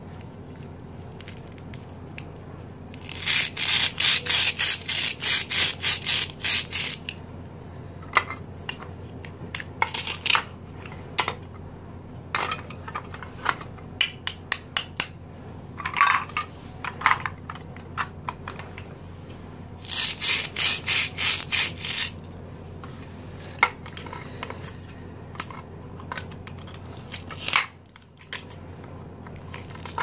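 Plastic toy knife sawing back and forth across velcro-joined plastic play fruit: two runs of quick rasping strokes, about four a second, one lasting a few seconds and a shorter one later. Between them come scattered light clicks and taps of plastic toy pieces being handled.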